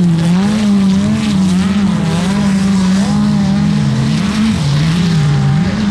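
Autocross car's engine running hard on a dirt track, its revs rising and falling over and over as the car slides and spins its wheels.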